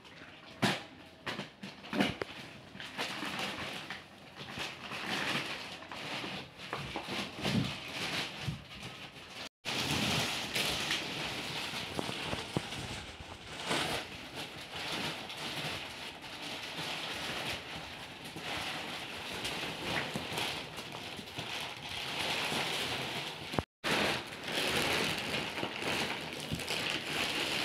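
Plastic wrapping crinkling and rustling as it is pulled off and shaken away from a memory foam mattress, with a few sharp knocks of handling near the start. The sound cuts out for an instant twice.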